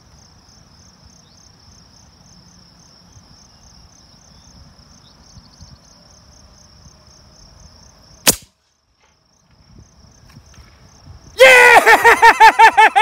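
Insects chirping steadily, then a single sharp report from a .50-calibre AirForce Texan big-bore air rifle about eight seconds in. A few seconds later a man yells and whoops loudly in triumph after hitting the target.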